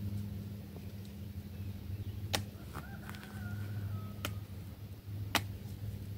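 A stick knocking against prickly pear cactus pads and fruit, three sharp clicks spread across a few seconds, over a steady low hum. A rooster crows faintly in the middle.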